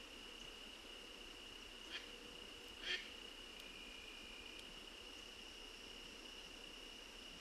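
Faint, steady chorus of insects singing on one high, unbroken pitch. Two short, sharp calls cut in about two and three seconds in, the second louder.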